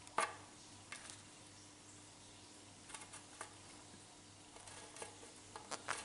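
A lovebird's beak and feet clicking and tapping on a slate board as it pushes grapes about. A sharp click comes about a quarter second in, then scattered light taps, with several in quick succession near the end.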